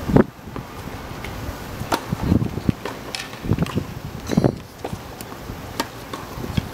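Tennis balls being struck by rackets and bouncing on a hard court: a sharp hit just after the start, then scattered pops of balls and shots, with a serve struck about four and a half seconds in.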